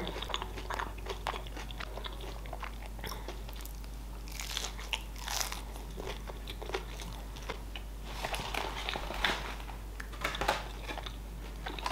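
A person chewing a mouthful of sushi roll, with crunchy, clicking bites that come in clusters about four and eight seconds in.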